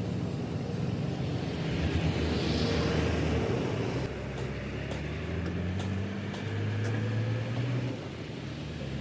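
Heavy truck diesel engine running under load as the wrecked chassis is towed off, its note rising in pitch in the second half as it picks up speed.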